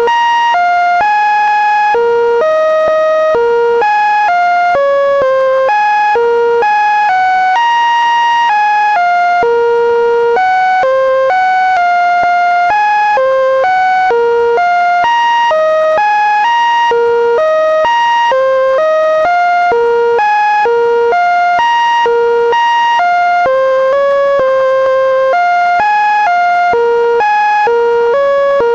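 Linux kernel data played as sound: a steady stream of synthesized beeping tones, one short note after another at about three a second, jumping up and down in pitch with no recognizable tune.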